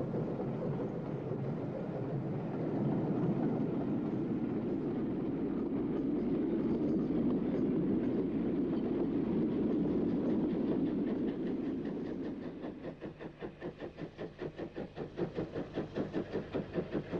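Highland Railway 'Jones Goods' 4-6-0 steam locomotive hauling a mixed train. A steady rumble as the train runs by gives way, about two-thirds of the way in, to a quick, even rhythm of exhaust beats as the engine works its train.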